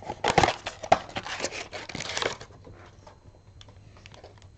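Hands handling cardboard trading-card boxes and wrapped card packs: a quick run of rustles, crinkles and taps for about two seconds, then only a few faint clicks.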